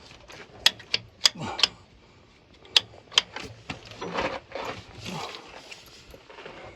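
Sharp metallic clicks and clanks of parts being handled: four in quick succession, then two more about a second later, followed by softer rattling.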